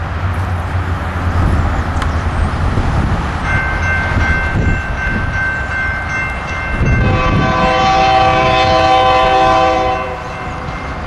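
Approaching freight train: the lead diesel locomotives rumble, then the locomotive's air horn sounds about a third of the way in as a steady chord that grows louder and fuller about two-thirds in and cuts off about a second before the end.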